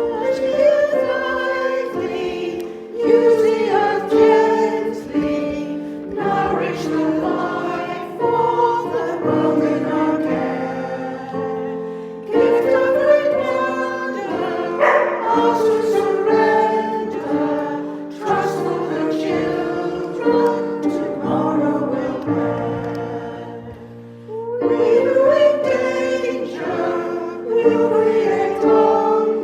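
Church choir singing a hymn with instrumental accompaniment, in phrases separated by brief breaths.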